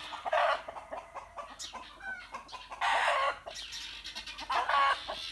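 Backyard chickens squawking and clucking in agitation: three louder squawks, about half a second in, around three seconds in and near the end, with quieter clucks between.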